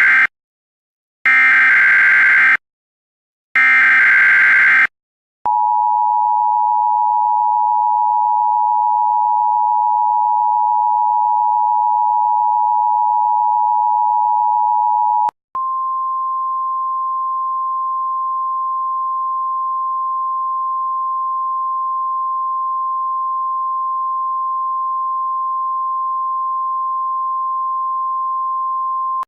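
Emergency Alert System alert signals. First come the SAME header data bursts: harsh, buzzing digital squawks, the end of one burst and then two more. About five seconds in, the two-tone EAS attention signal starts and holds steady for about ten seconds. It then switches to a single steady tone, slightly higher, that lasts for the rest.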